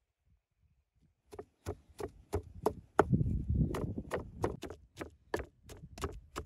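A wooden pestle pounding garlic cloves in a wooden mortar. It makes a steady run of knocks, about three a second, starting about a second and a half in, with the garlic being crushed to a pulp.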